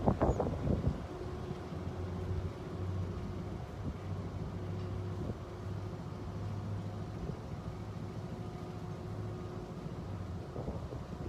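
A motor vehicle's engine idling with a steady low hum, with louder, rougher noise in the first second.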